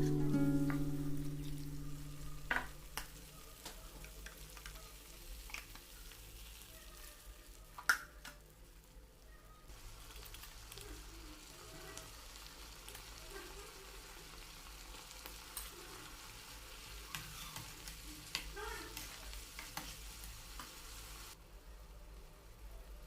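Food frying quietly in a pan while it is stirred, with scattered clicks of the spoon against the pan; one louder knock comes about eight seconds in. A guitar tune fades out at the very start.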